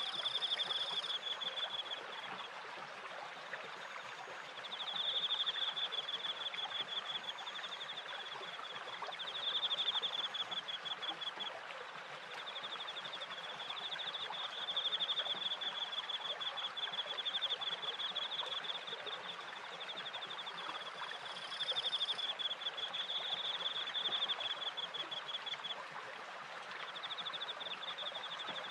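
Crickets chirping in high, rapidly pulsed trills that come in bouts of a few seconds with short pauses, over the steady rush of running water from a stream and a turning water wheel.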